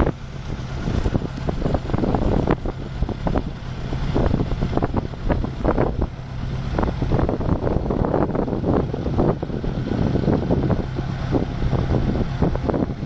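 Motorcycle engine running at a steady speed, with gusts of wind buffeting the microphone.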